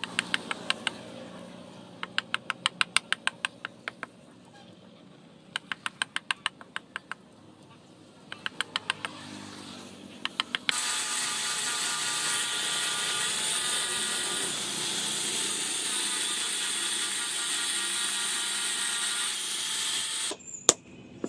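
A small hatchet chops lightly at a wooden handle blank in four quick bursts of rapid knocks. Then, about halfway through, an angle grinder with a sanding disc starts and runs steadily before cutting off near the end, followed by a single knock.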